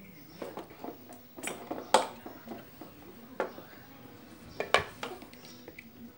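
Scattered clicks and knocks of handling: the opened plastic case of a meter and small hand tools knocking against a plywood tabletop. The loudest knock comes about two seconds in, and two more come close together near five seconds.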